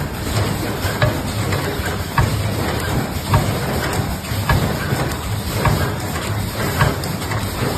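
Automatic high-frequency PVC welding machine running, with a steady low hum and a sharp knock about once a second as it cycles through its welding strokes.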